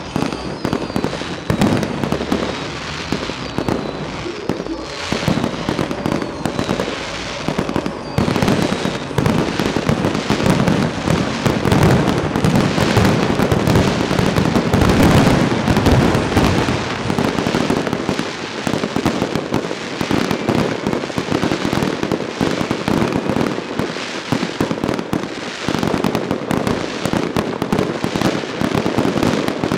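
Aerial fireworks shells bursting one after another in a dense, unbroken barrage of bangs and crackle, heaviest about halfway through.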